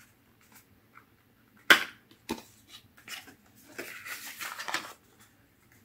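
Small cardboard product box being opened by hand: a sharp snap about two seconds in, then light clicks and a stretch of rustling and scraping as the jar inside is slid out.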